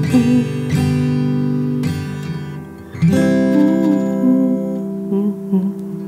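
Acoustic guitar strumming chords and letting them ring, with a fresh chord struck about three seconds in and left to fade.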